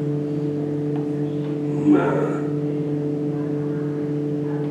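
A steady low-pitched hum with a few fixed tones, unchanging throughout. About two seconds in, a man's voice gives a brief murmur.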